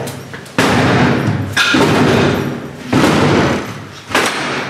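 Heavy blows on a wooden flat door as police force it: four loud thuds about a second apart, each ringing on in the stairwell.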